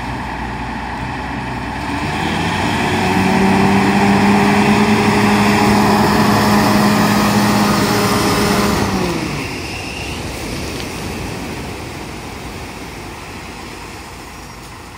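Wheel loader's diesel engine revving up for several seconds as its bucket is raised, then dropping back to idle about nine seconds in. Surf washes on the shingle beach throughout.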